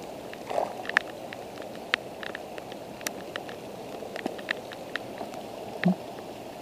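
Steady rush of flowing river water, with scattered sharp clicks and knocks as a small fish is landed and unhooked by hand. The loudest knocks come about a second in and again near the end.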